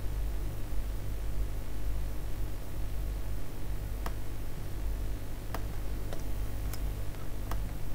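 Steady low electrical hum with about six faint clicks from a computer mouse and keyboard, spread over the second half.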